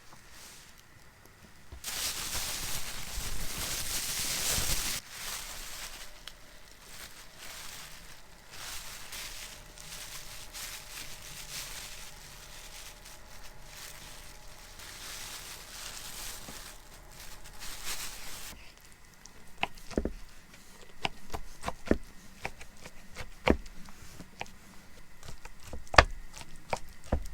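A loud rushing hiss for about three seconds, then a softer steady noise with faint ticks. About two-thirds of the way through, sharp irregular knocks begin, like a knife chopping on a cutting board.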